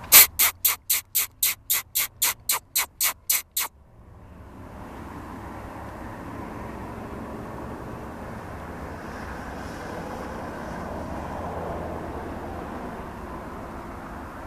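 A rapid run of about fifteen sharp bursts of noise, about four a second, that stops suddenly just under four seconds in. Then steady road-traffic noise, swelling a little as a vehicle passes near the end.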